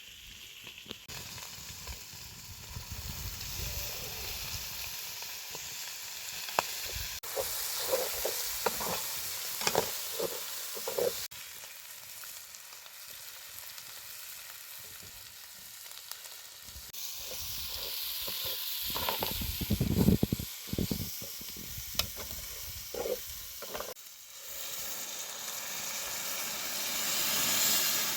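Food sizzling as it fries in a pan, stirred with a utensil that scrapes and knocks against the pan in short bursts. The frying sound changes abruptly several times.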